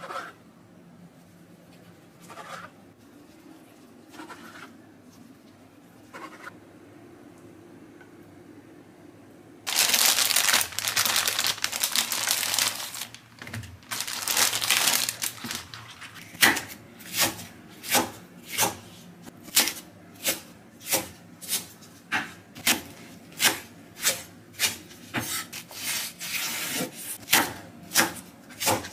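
A few faint knife strokes through a rolled omelette on a cutting board. Then, from about ten seconds in, a plastic bag of green onions crinkles loudly in two spells. After that a knife chops green onions on a wooden cutting board in steady strokes, about one and a half a second.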